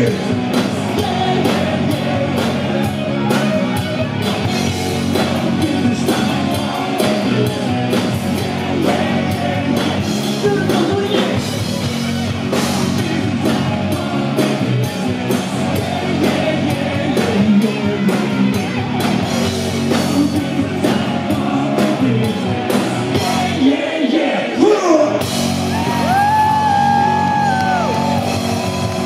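Hard rock band playing live: singing and shouted vocals over drums and distorted guitars. About 25 seconds in the drums drop out, leaving one long held note that bends in pitch.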